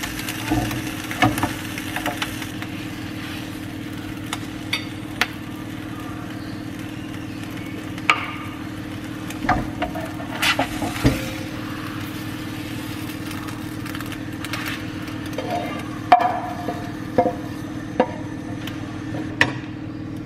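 Filled tortilla wrap frying in a hot pan: a soft sizzle over a steady hum, broken by scattered knocks and clinks against the pan.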